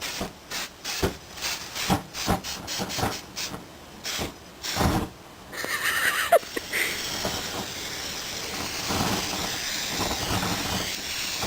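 Scattered knocks and crackles, then, from about halfway in, a steady loud hiss of a gas flame turned up on the burning hard drive.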